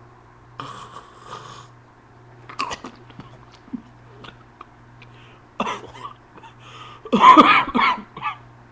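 A man coughing and sputtering in several short bursts, the loudest near the end, in reaction to the white vinegar he has just sniffed.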